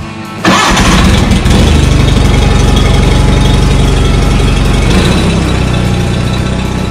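John Deere 318 garden tractor's Onan twin-cylinder engine catching about half a second in and then running steadily, still cold and needing to warm up; its low note shifts about five seconds in.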